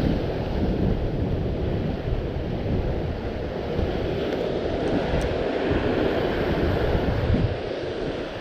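Wind buffeting the microphone over the wash of ocean surf, a steady low rumbling noise.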